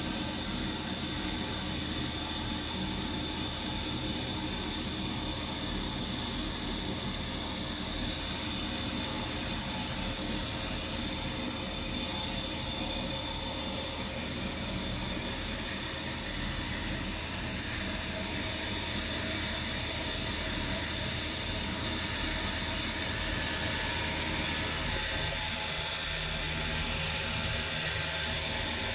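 Hurco five-axis CNC milling machine running a chamfering pass in an Inconel block: steady spindle whine and machine hum while the trunnion table tilts and rotates the part. A hiss grows louder near the end.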